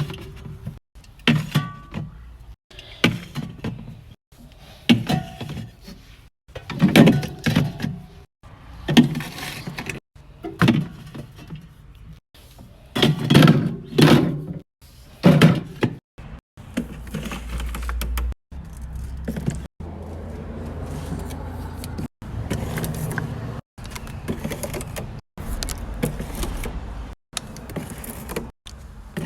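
A string of short, abruptly cut clips of groceries being handled and put away: packaging rustling, items knocking and clattering as they are set down, and doors opening and closing.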